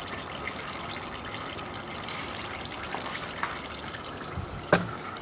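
Old automatic transmission fluid trickling steadily from the drain hole of a 2013 Toyota Camry's six-speed automatic transmission pan, with the level tube pulled out. A sharp knock comes near the end.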